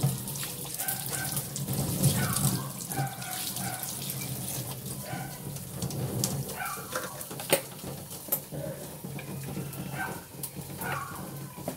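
Tap water running into a stainless steel sink as a plastic cutting board is rinsed of soap, with a few sharp knocks of the board and dishes, the loudest about halfway through.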